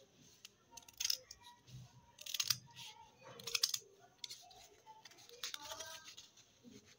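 Scissors cutting through folded stiff fusible buckram interfacing: several crisp snips, roughly one a second, the loudest about a second, two and a half and three and a half seconds in.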